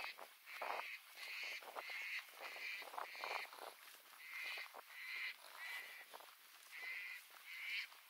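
A bird calling outdoors: short calls repeated about twice a second in runs, with brief pauses about four seconds and about six seconds in. Faint footsteps on dry ground sound underneath in the first half.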